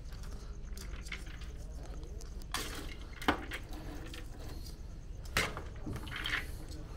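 Metal cooking pots and utensils clinking and knocking, a few sharp strikes with the loudest about three seconds in, over a steady low rumble.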